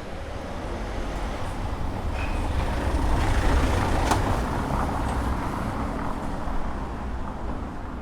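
A motor vehicle passes by, its engine rumble and tyre noise swelling to a peak about halfway through and then fading away. There is a sharp click about four seconds in.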